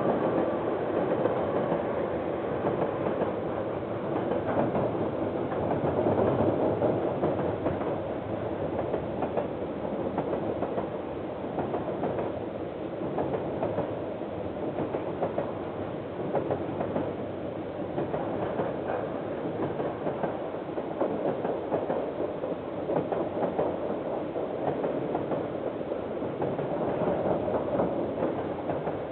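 A KiwiRail train rolling past, its wagons rumbling steadily with the wheels clacking over the rail joints, heard through a security camera's microphone.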